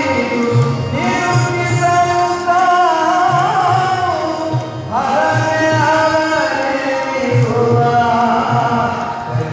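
Male vocalist singing long, gliding held phrases, with a sharp upward glide about five seconds in, accompanied by tabla keeping a steady rhythmic cycle over a tanpura drone.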